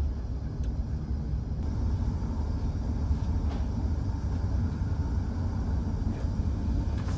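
Steady low rumble of a Hokuriku Shinkansen E7/W7-series train running, heard inside the passenger cabin, with a few faint ticks.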